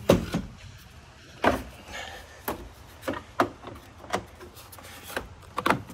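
Handling noise: about half a dozen scattered knocks and bumps as a hand and a cable connector work against a plastic battery housing, the first the loudest.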